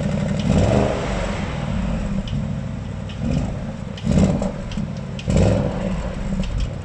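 Audi RS Q8's twin-turbo V8 running at the exhaust tip, engine still cold, idling with several short blips of the throttle that make the exhaust note swell and drop back.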